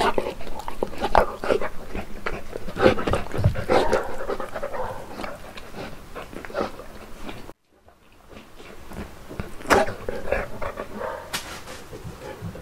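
Saint Bernard eating off a plate: wet chewing, licking and lip-smacking with panting in between. The sound cuts out briefly about halfway through, then picks up again.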